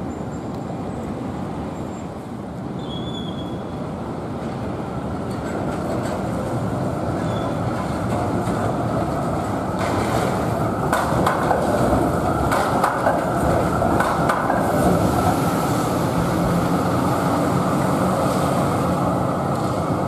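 Melbourne A-class trams running along a wet city street, with the steady hiss of traffic and tyres on wet road. It gets louder about halfway through, where a run of sharp clacks comes from tram wheels crossing rail joints and points.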